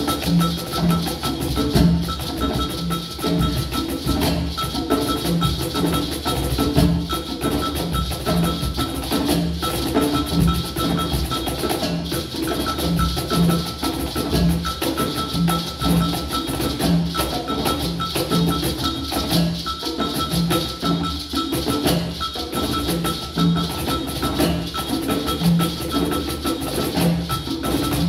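A small percussion ensemble playing a groove on congas, cajon and other hand percussion, with a mallet or keyboard part; low drum notes repeat in a steady pattern of about two a second.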